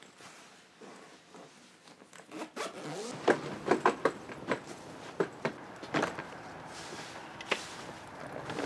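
A suitcase being zipped shut in short pulls. Then, about three seconds in, a run of loud, irregular knocks as a wheeled suitcase is bumped down wooden porch steps, with footsteps.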